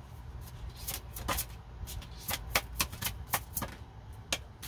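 Tarot cards being handled and shuffled by hand: a run of about a dozen sharp, irregular card snaps and flicks lasting about three seconds, over a steady low rumble.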